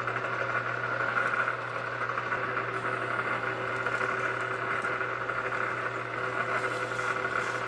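Milling machine running with its drill bit boring through a soft plastic block, a steady hum with a higher whine over it.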